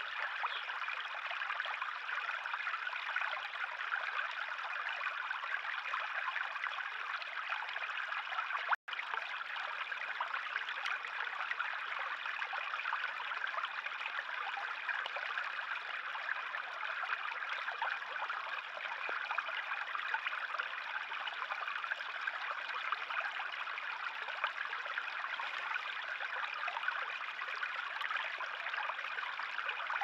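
Shallow forest stream running and trickling over stones, a steady rushing that cuts out for an instant about nine seconds in.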